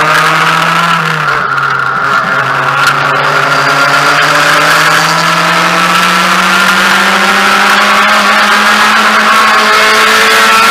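Mazda MX-5 race car's four-cylinder engine heard from inside the cabin under acceleration: its note drops about a second in, as at an upshift, then climbs steadily as the car pulls down the straight, over a steady hiss of wind and road noise.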